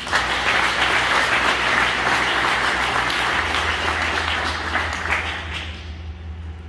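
Audience applauding, starting at once and dying away about five or six seconds in.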